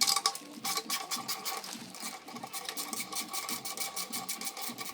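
A tool undoing a bolt on the motorcycle's exhaust: rapid, even clicking over a steady whine.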